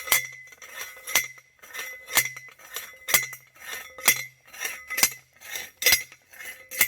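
Steel fence post being driven into the ground: sharp metal-on-metal clanks about once a second, each ringing briefly, with lighter knocks between.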